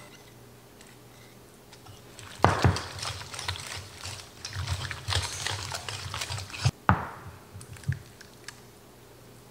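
A wooden spoon stirring wet quiche filling in a stainless steel bowl. It makes rapid clicks and scrapes of wood on metal, starting with a sharp knock about two seconds in and ending with a few knocks about seven seconds in.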